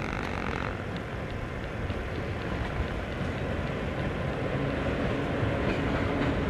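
ET22 electric freight locomotive approaching from a distance: a steady low rumble that grows slowly louder.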